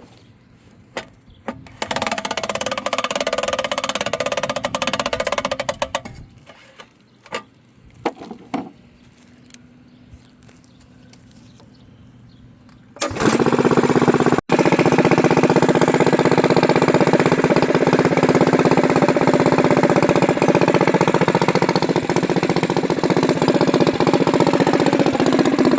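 Modified mini bike's small single-cylinder engine, with a ported head and 275 cam, being started: a first try of about four seconds that dies out, a few clicks, then about halfway through it fires and keeps running steadily.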